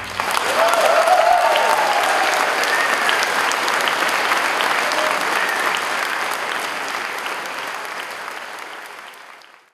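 Audience applauding, with a voice or two calling out in the first few seconds; the applause fades away near the end.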